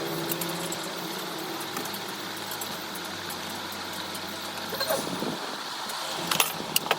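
A motor vehicle engine running steadily, dropping slightly in pitch about three seconds in, with a few sharp metallic clicks and knocks, the loudest near the end.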